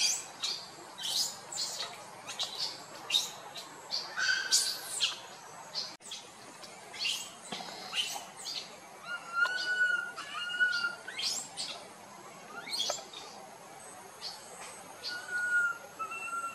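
Birds calling in the trees: many quick rising chirps, and a clear two-note whistle that comes back about every six seconds.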